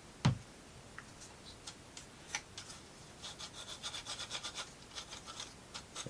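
Wooden plywood model parts being handled: a single knock, then scattered clicks and a quick run of clicking, about eight a second for a second and a half, as the kit's wooden gear mechanism is worked by hand.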